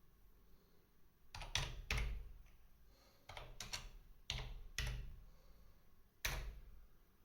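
Computer keyboard keys pressed one at a time, about ten separate clicks in small clusters with pauses between, as a command is typed into a terminal.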